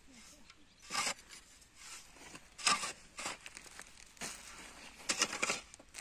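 Long-handled shovel scraping and digging into dry, stony soil: several short gritty scrapes, a second or so apart, with a cluster of them near the end.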